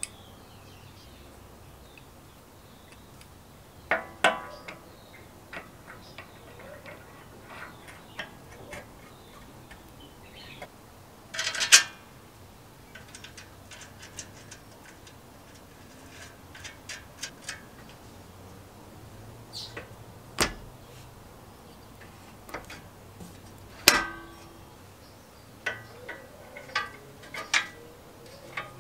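Small metal parts and fasteners clicking and clinking as a bracket, bolt and nut are fitted by hand to a Suffolk Super Punch cylinder mower's side plate. The handling runs in scattered light clicks, with a few louder, ringing metallic clinks about 4, 12, 20 and 24 seconds in.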